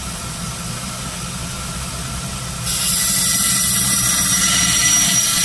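Electric belt grinder running with a steady hum; about halfway through, the steel bit of an old axe head is pressed against the abrasive belt and a loud, steady grinding hiss starts as the edge is reground.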